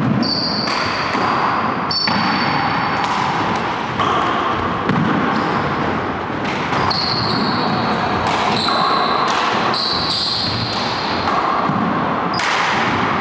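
Handball rally: a rubber ball smacked by gloved hands and slapping off the court walls and floor every second or two, with an echo after each hit. Sneakers squeak briefly on the hardwood floor several times in between.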